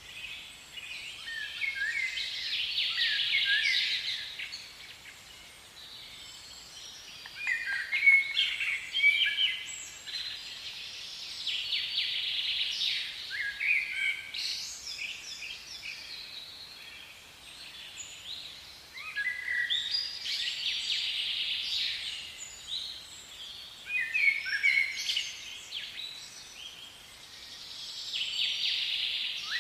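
Birds singing in repeated bursts of high chirps and quick notes, with pauses of a few seconds between bursts. The loudest burst comes about eight seconds in.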